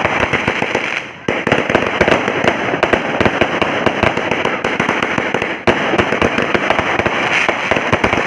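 300-shot 0.8-inch firework cake firing a rapid, dense string of shots and pops, with a short lull about a second in.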